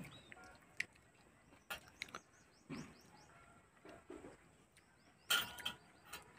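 A person eating banana flower pickle, with faint chewing and lip-smacking clicks and a louder mouth smack or breath about five seconds in. Faint high bird chirps repeat in the background.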